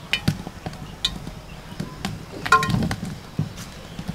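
Wood fire crackling in a mud stove, with scattered sharp pops and snaps. A short pitched call cuts through about two and a half seconds in.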